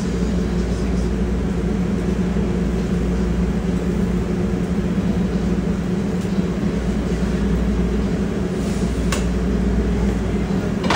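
Steady low mechanical hum, like an engine or motor running, with a brief click about nine seconds in.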